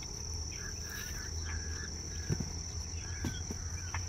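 Insects keep up a steady high-pitched trill, with a few faint chirps and a low steady hum underneath. A couple of soft knocks come in the second half.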